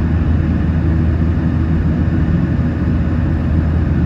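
Steady cabin noise of a Boeing 737-900 climbing after takeoff: a low, even drone from the CFM56-7B engines under a rush of airflow.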